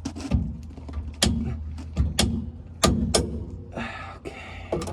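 Irregular sharp metallic clicks and knocks from hand tools working on the truck's underside, about seven in a few seconds, over a low steady hum that stops about three and a half seconds in.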